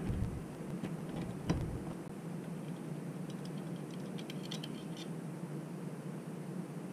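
Faint metallic clicks and ticks as a float chamber screw is backed out of a motorcycle carburetor and handled, with one sharper click about one and a half seconds in, over a steady low hum.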